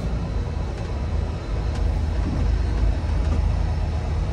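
Semi-truck's diesel engine running, a steady low drone heard inside the cab.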